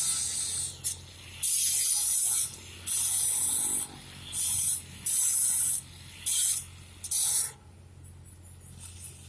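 Stick-welding arc of a cellulosic electrode on steel pipe, crackling in about seven separate bursts of up to a second each, with the arc dying between them; a steady low hum runs underneath and the arc stops about seven and a half seconds in.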